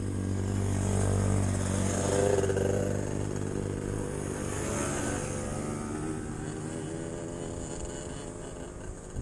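Off-road vehicle engine running and revving, with its pitch rising and falling, loudest about two seconds in and then gradually easing off.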